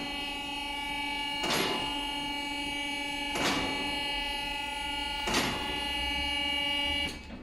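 Electric-hydraulic vehicle lift raising the car: a steady motor whine with a sharp click about every two seconds as the safety latches catch, stopping abruptly about seven seconds in.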